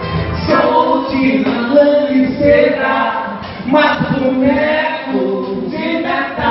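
Live vocal music: voices singing together, with little or no instrument backing.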